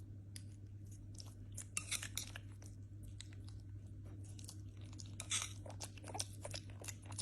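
A small pet monkey chewing and crunching food, with many scattered clicks and louder crunchy bursts about two seconds and five seconds in, over a steady low hum.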